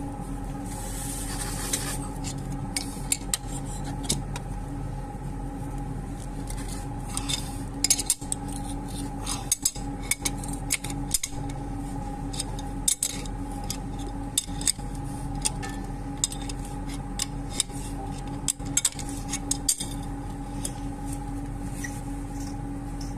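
Metal tool clinking, tapping and scraping against a plumbing fitting in irregular sharp clicks, with a steady hum underneath.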